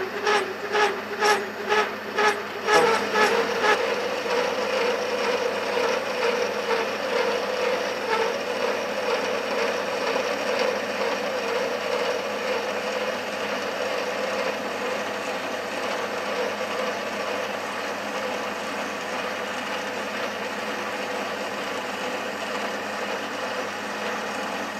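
A 12 mm slot mill in a lathe's tailstock cutting through the bronze insert of a spinning cast-iron locomotive wheel, opening out the drilled crank-pin hole to correct the drill's wobble. It pulses about twice a second for the first few seconds, then settles into a steady cutting sound.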